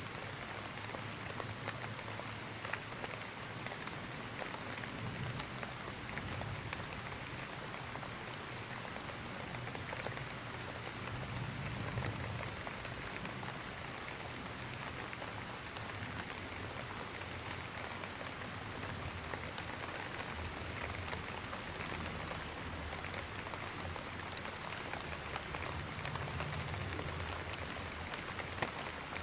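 Steady rain falling, a constant hiss with scattered drop ticks, under a soft low rumble that swells and fades a few times.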